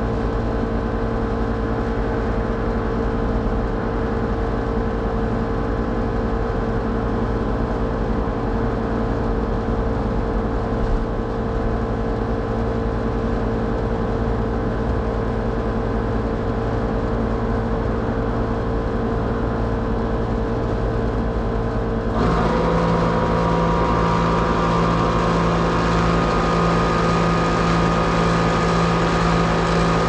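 Old Trane commercial air-conditioning unit running with a steady mechanical hum made of several fixed tones. About twenty seconds in, a second part of the unit starts abruptly, adding a lower hum and more hiss. This is the side of the system that cycles on erratically and sounds wrong, which the owner suspects is near the end of its service life.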